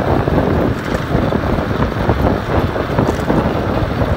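Wind buffeting the microphone of a camera mounted on an electric bike riding at about 35 km/h, over the rolling noise of mountain-bike tyres on pavement. The steady, loud noise rumbles most strongly in the low end.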